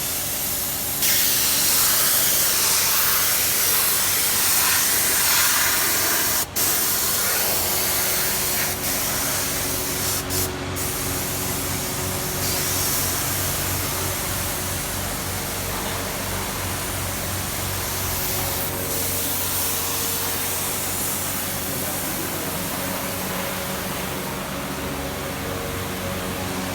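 Compressed-air spray gun hissing steadily as it sprays leather paint onto a car seat. It gets louder about a second in and cuts out briefly twice, around six and ten seconds in. A steady low hum runs underneath.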